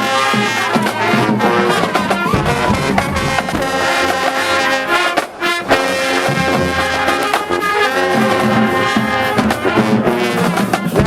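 Marching band playing: loud trumpets and trombones holding and moving through chords over drums, with a brief break about halfway cut off by a sharp accented hit.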